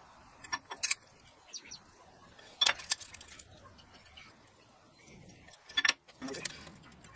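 Scattered sharp metallic clicks and clinks, the sound of steel pieces and tools being handled at a workbench: a couple just under a second in, a louder cluster near three seconds, and another near six seconds.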